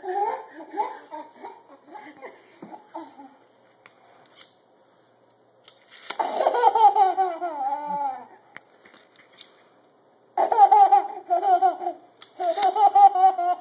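A toddler laughing with high-pitched giggles in several separate bursts, with quiet pauses of a second or two between them.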